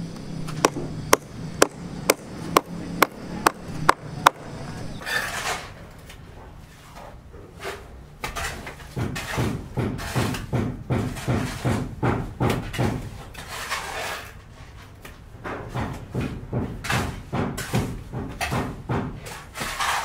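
Repeated hammer blows on a building site: a steady run of sharp knocks, about two a second, for the first four seconds, then from about nine seconds in faster bouts of hammering, several blows a second, with a short pause midway.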